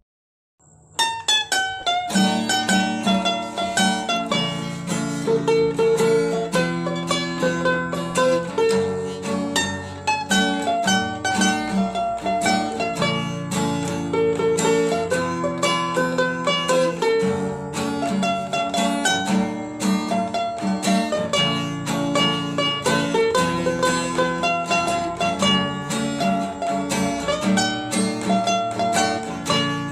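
Ukulele melody: a lively plucked tune of quick short notes over chords, starting about a second in.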